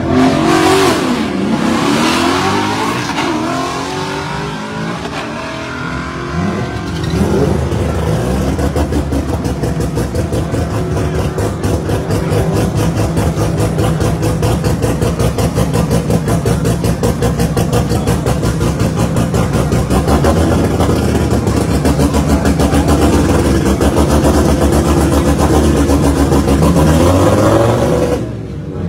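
Rotary engine of a drag-race hatchback being revved several times, then running steadily with a rapid, choppy exhaust pulse. It drops away briefly near the end.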